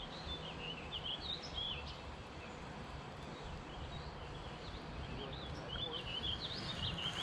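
Songbirds chirping in short, quick notes over a steady low outdoor background noise, with a single sharp click at the very end.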